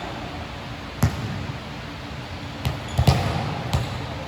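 Basketball bouncing on a court during a game: one sharp bounce about a second in, then a quick run of four more in the second half, over steady background noise.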